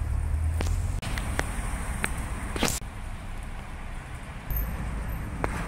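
Outdoor ambience: a low, uneven rumble of wind on the microphone with a faint hiss, broken by several short sharp clicks, the sharpest about two and a half seconds in.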